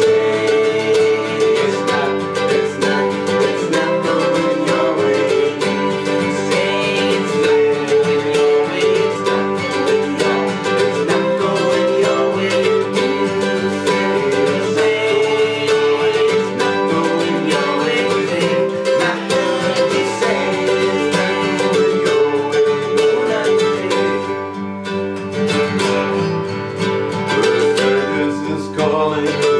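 Country-jazz band music led by plucked acoustic guitar playing a picked instrumental passage.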